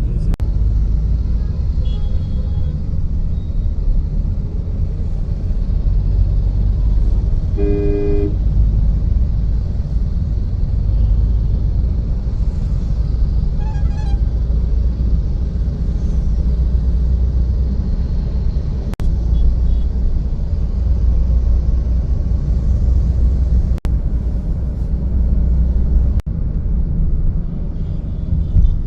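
Steady low rumble of road traffic, with a vehicle horn honking briefly about eight seconds in and a fainter honk around fourteen seconds. The sound drops out for an instant three times in the second half.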